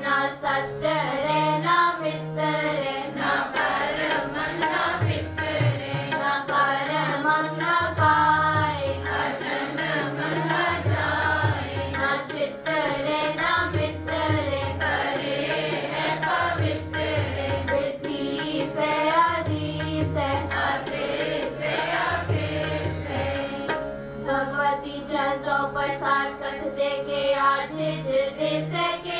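Girls singing a devotional hymn together in unison, accompanied by two NAGI harmoniums holding steady reed chords and a tabla keeping a steady rhythm, with the low bass drum sounding every second or two.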